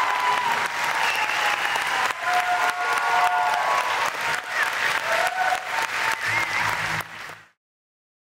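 Theatre audience applauding with cheers and whoops rising over the clapping; the sound cuts off abruptly near the end.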